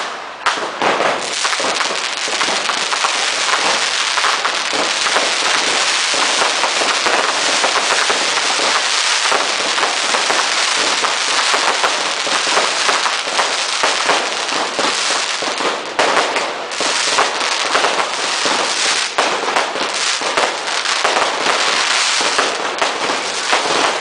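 Class 2 consumer fireworks and firecrackers going off in a dense, unbroken barrage: countless small bangs and crackles run together into one continuous crackling.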